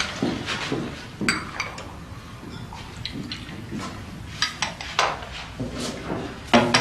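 Teacups and dishes clinking and being set down on a table: a string of light, uneven clinks and knocks, with a few sharper ones near the end.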